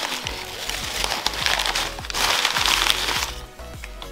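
Crumpled packing paper rustling and crinkling as it is pulled apart by hand to unwrap a parcel. It is loudest in the middle and stops a little after three seconds in. Soft background music plays underneath.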